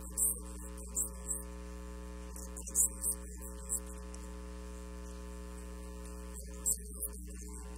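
Steady electrical mains hum, as from a ground loop in the church's sound or recording line, with a few short faint hisses standing out over it.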